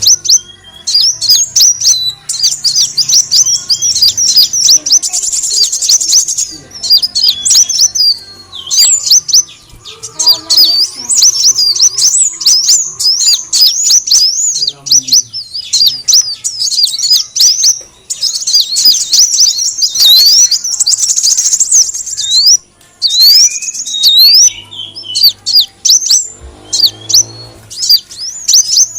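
Kolibri wulung sunbird calls, played as a bird-trapping lure: a nonstop stream of rapid, high-pitched chirps and twittering glides, broken only by short pauses.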